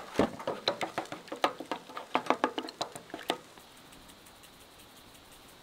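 Spatula scraping and clacking against a frying pan in quick strokes while scrambling eggs, about three or four strokes a second, stopping about three and a half seconds in.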